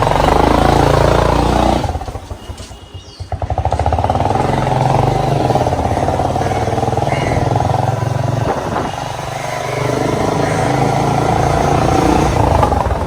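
Motorcycle engine running while riding. It eases off about two seconds in and picks up again a second or so later.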